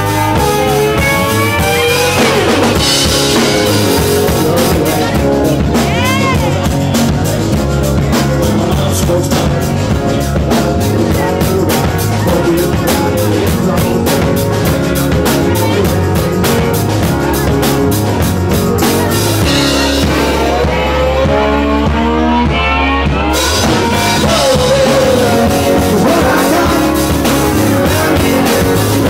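Live rock band playing: guitars over a steady drum beat, with a few sliding guitar notes.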